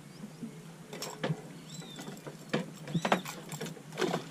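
Scattered sharp knocks and splashy clicks as a dorado is handled at the boat's side while being lifted aboard, with two short high chirps, each falling in pitch, a little under and about three seconds in.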